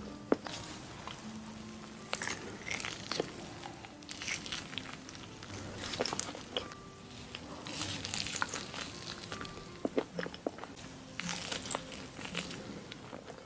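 Close-miked eating of chocolate-spread-filled crepes: irregular bites and chewing, with sharp clicky mouth sounds.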